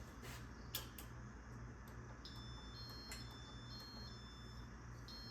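Casablanca Holliston ceiling fan being started in demo mode from its IntelliTouch wall control: a low pulsing hum, a sharp click under a second in and another about three seconds in, and faint high electronic tones that step in pitch from a bit past two seconds.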